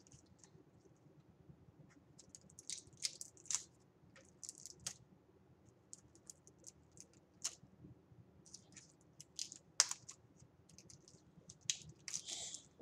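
Small irregular clicks, taps and light scratches from handling plastic makeup palettes at close range, coming in clusters, with the sharpest click about ten seconds in.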